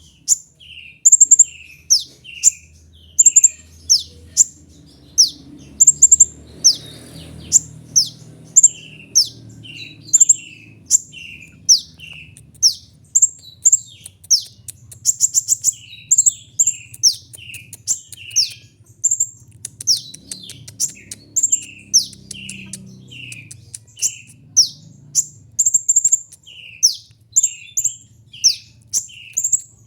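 Brown-throated sunbird (kolibri ninja) calling steadily: sharp, high chirps that sweep downward, each with a lower note after it, about two a second, with a quicker run of notes about halfway through.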